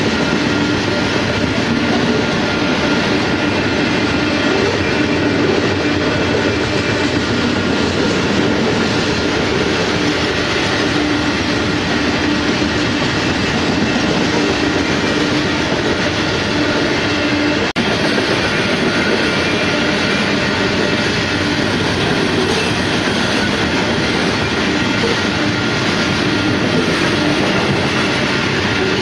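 Freight train of covered hopper cars rolling steadily past, steel wheels running on the rails in a continuous loud rumble. The sound cuts out briefly about two-thirds of the way through.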